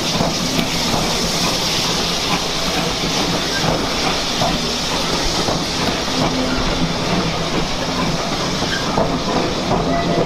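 Steam tank locomotive hauling a train of coaches slowly away, with a steady hiss of steam over the low rumble of the coaches' wheels on the track.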